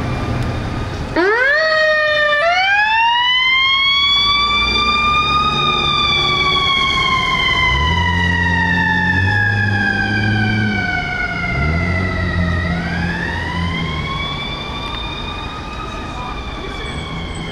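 Ambulance siren starting up about a second in with a few quick rising chirps, then settling into a slow wail that rises, falls slowly and rises again. Two low, steady blasts sound under it around the middle.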